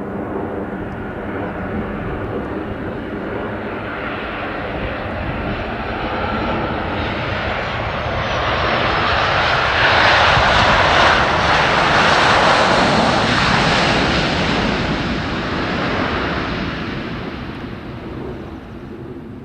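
Boeing 737-800's twin CFM56-7B turbofan jet engines as the airliner passes. The roar swells to its loudest about halfway through and then fades, with a high whine falling in pitch as it approaches.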